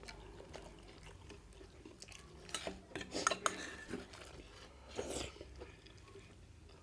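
Faint clinks and scrapes of tableware while eating, in a few short clusters about two and a half seconds in and again near five seconds.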